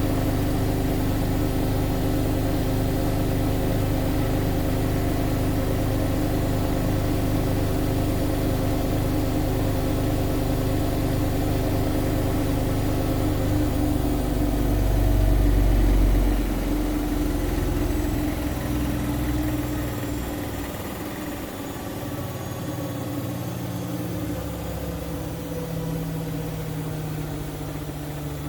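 Siemens Siwamat IQ 716 washing machine spinning: a steady motor whine at high drum speed, then about halfway through a deep rumble swells briefly. After that the whine falls in pitch and the sound gets quieter as the spin winds down.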